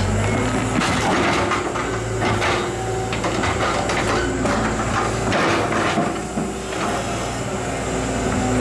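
Caterpillar tracked excavator's diesel engine running steadily under load as its bucket digs into soil and tree roots, with scattered knocks and crunches of earth and roots breaking.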